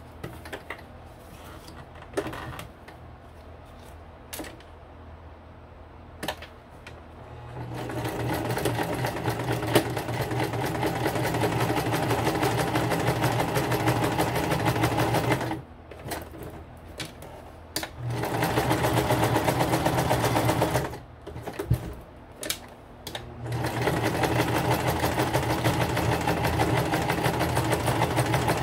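Electric sewing machine stitching through a paper collage card. After some quiet handling it runs in three bursts: a long run of about eight seconds, a short one of about three, then one of about five. Small clicks come between the runs.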